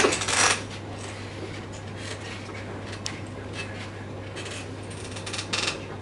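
Brief rustling and clinking of small objects being handled, loudest right at the start and again about five and a half seconds in, over a steady low hum.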